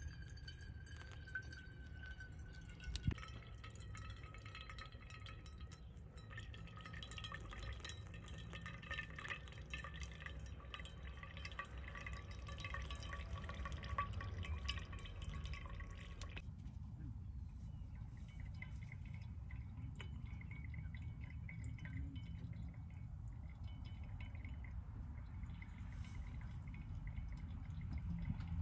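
Pour-over coffee brewing: hot water trickling from a gooseneck kettle onto grounds in a paper filter, and coffee dripping into a stainless vacuum flask below. One sharp light knock about three seconds in.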